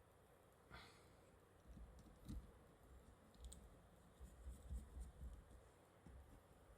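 Faint, scattered small clicks and soft knocks of a screwdriver and small parts handled on a smartphone's internal frame while short screws are fitted.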